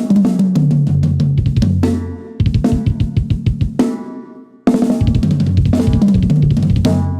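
Mapex Saturn VI drum kit played in three short fills: rapid strokes with bass drum, snare and cymbals, the tom notes stepping down in pitch. Each fill rings out and the next starts suddenly, about two and a half and four and a half seconds in.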